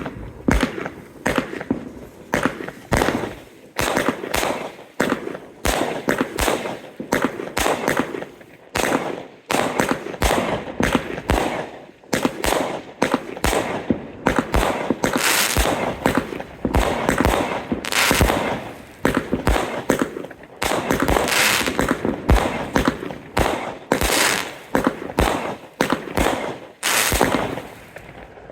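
Lesli "Color Thunder Storm" firework going off in a rapid, continuous series of shots. There are several sharp bangs a second, many trailed by crackling.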